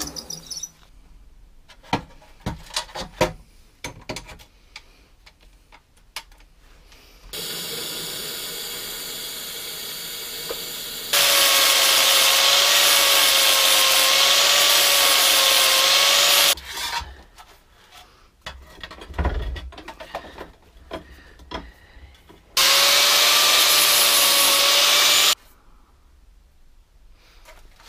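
Angle grinder with a cutting disc slicing through a steel repair strip, throwing sparks, with a wavering whine. It makes one cut of about five seconds, then after a pause a second cut of about three seconds near the end. Before the first cut come clicks and knocks of metal being handled and a quieter steady machine noise lasting about four seconds.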